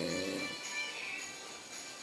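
An elderly man snoring, one snore trailing off about half a second in, over steady background music.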